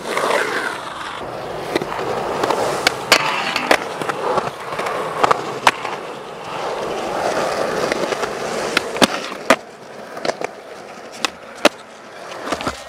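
Skateboard wheels rolling over concrete, a steady gritty rumble broken by many sharp clacks of the board hitting the ground. The rolling grows quieter in the last few seconds.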